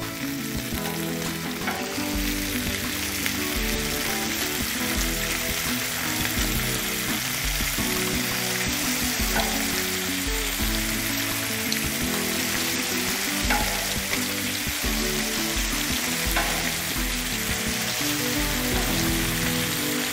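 Bacon sizzling steadily in its grease on a hot flat-top gas griddle. A few faint clicks come through as the strips are turned with tongs.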